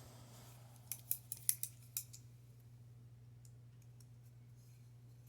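A quick run of about six light clicks over about a second from a Ganzo G766 balisong's handles and pivots as the small knife is handled, followed by a steady low hum.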